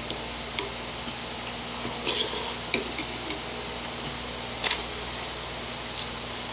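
Metal spoon clinking and scraping against a ceramic bowl of rice in water: a few sharp clicks and clatters, the loudest about two thirds of the way in.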